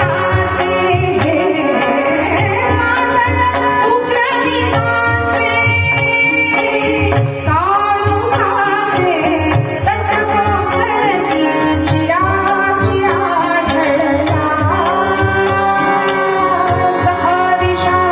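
A woman singing a devotional song in Indian classical style, with tabla drums playing a steady rhythm beneath her voice.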